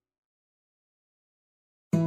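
Silence between two music tracks; background music with plucked-string notes starts abruptly near the end.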